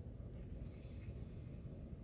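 Faint handling sounds, a few light clicks and rubbing, from gloved fingers working grease into the rails of a stainless steel AMT Automag V pistol frame, over a steady low rumble.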